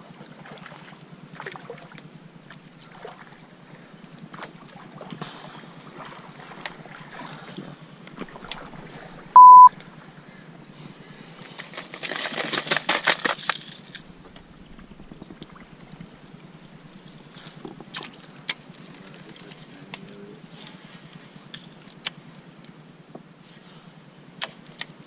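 Fishing lures clattering and rattling in a plastic tackle box as hands rummage through it, loudest in a burst about twelve seconds in, with scattered small clicks and knocks before and after. One short, loud, single-pitched electronic beep sounds about nine and a half seconds in.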